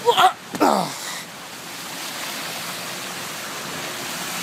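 Steady rush of flash-flood water, an even hiss that builds slightly, with a short exclamation from a person in the first second.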